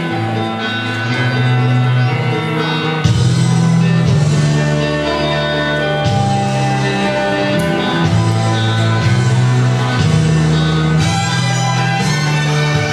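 Music, with a prominent bass line that changes note every second or two.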